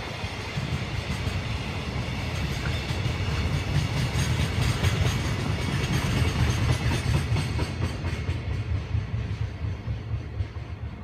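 Container wagons of a freight train rolling past, their wheels clattering on the rails. The last wagons go by and the sound fades from about eight seconds in.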